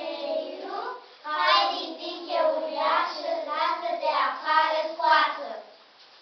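Voices singing a short rhythmic sung passage that stops shortly before the end.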